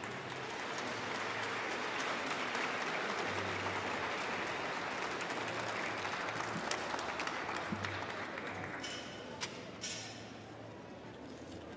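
Audience applauding, building up over the first couple of seconds and dying away about ten seconds in.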